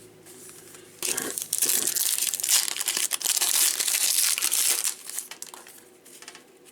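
Foil wrapper of a baseball card pack being crinkled and torn open, a dense crackling for about four seconds that then dies down to a few scattered crackles.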